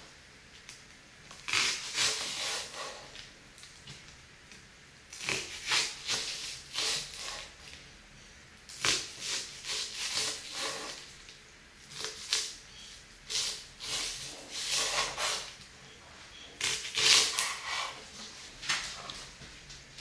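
Kitchen knife slicing a long green onion on a wooden cutting board: crisp crunching cuts in about six short runs of strokes, with pauses of a second or two between them.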